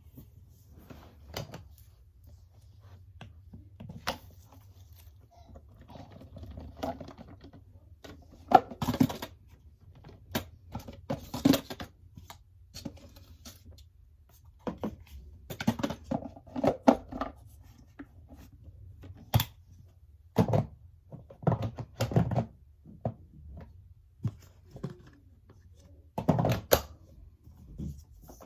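Irregular knocks, thuds and clicks of objects being handled and set down, with a faint low hum underneath; the vacuum cleaner is not running.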